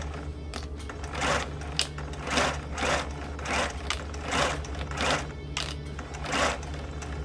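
Electric sewing machine running steadily as it stitches a seam through fabric, a constant low motor hum with a soft swish swelling roughly every half second.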